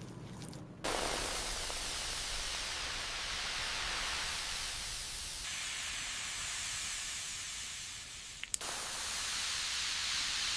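Pressurised spray hissing steadily, cutting off briefly with a click about eight and a half seconds in, then starting again.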